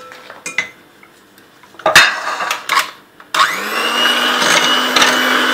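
Two sharp knocks, then a handheld electric mixer is switched on a little over halfway through, its motor spinning up quickly and then running steadily as its beaters whip fresh cream.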